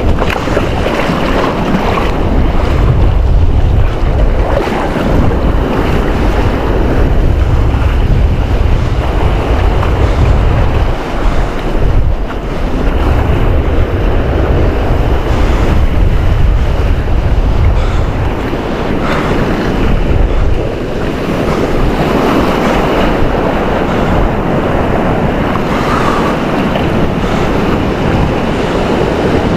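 Surf washing and breaking over rocks at the water's edge, loud and continuous, with heavy wind buffeting on the microphone that swells and eases.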